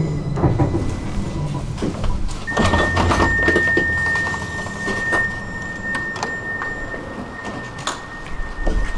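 Inside a tram: clunks and rattles, then a steady high-pitched tone that starts about two and a half seconds in and holds on.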